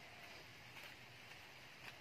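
Near silence: faint steady background hiss with a few soft ticks.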